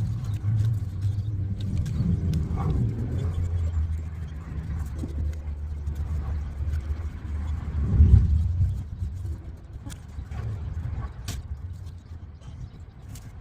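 Vehicle engine running with a low, steady hum, its pitch swelling briefly twice: a few seconds in and again, louder, about eight seconds in.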